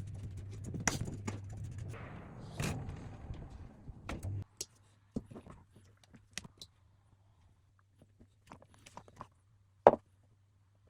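Kitchen handling sounds: a steady low hum with some rustling cuts off suddenly about four and a half seconds in. Scattered light clicks and taps of utensils and dishes follow, then one sharp knock near the end.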